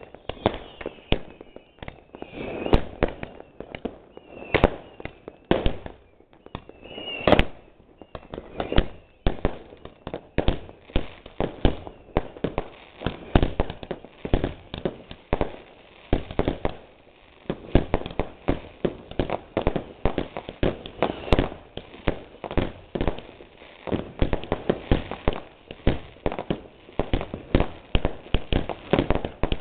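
Consumer fireworks going off overhead: a steady barrage of bangs and crackling reports in quick succession. High whistles glide through the first several seconds, and from about ten seconds in the reports come faster and denser as aerial bursts go off.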